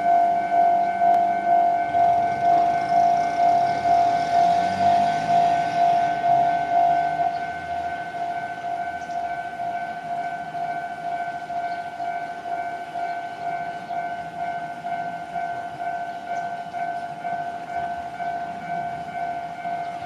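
Japanese railway level-crossing warning bell ringing, an electronic ding at one steady pitch repeating a little under twice a second. About seven seconds in, it drops to a clearly lower volume and keeps ringing.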